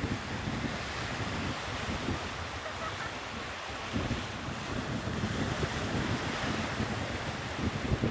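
Sea waves washing steadily on the shore, with wind gusting against the microphone in low, irregular rumbles.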